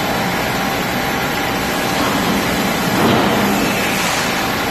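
A steady, loud mechanical hum, swelling slightly about three seconds in.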